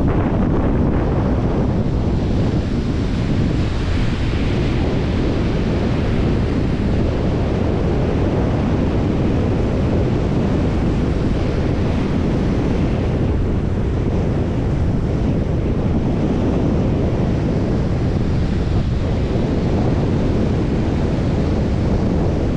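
Strong wind blowing steadily on the microphone in a low rumble, with the hiss of sea waves washing on the shore beneath it, swelling now and then.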